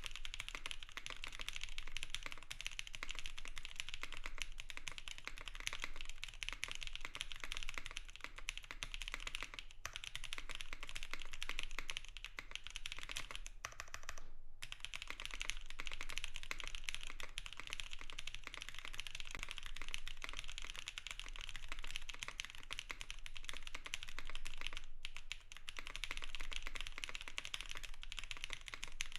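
Continuous fast typing on an ai03 Vega custom mechanical keyboard with an FR4 plate, Black Cherry Pie switches and GMK Modo Light keycaps. It is a dense stream of keystroke clacks with a brief pause about halfway through.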